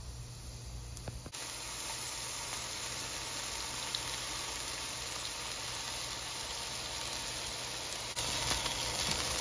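King oyster mushroom slices sizzling in hot oil in a frying pan. The sizzle starts suddenly about a second in and holds steady, then gets louder with scattered crackles near the end.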